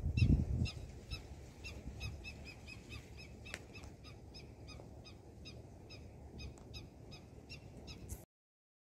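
A bird calling over and over in short, high notes, about three a second, until the sound cuts off suddenly near the end. Low thumps on the microphone at the start are the loudest sound.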